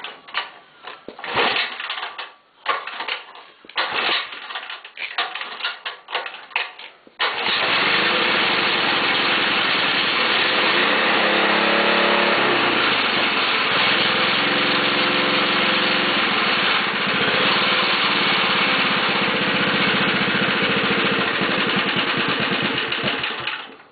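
Small 3.5 hp Tecumseh single-cylinder gasoline engine on a go-kart, cold-started with the pull cord: several uneven pulls, then it catches about seven seconds in. It runs loudly and steadily, its speed dipping and rising once a few seconds after it catches, then stops just before the end.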